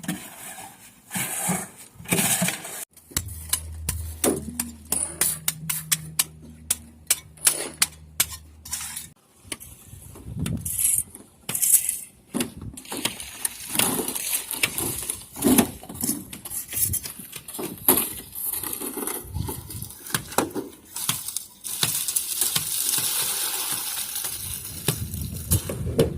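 Steel centring formwork being handled on a building site: irregular metallic clinks, clanks and knocks throughout. A low hum runs for a few seconds near the start, and a steady hiss comes in near the end.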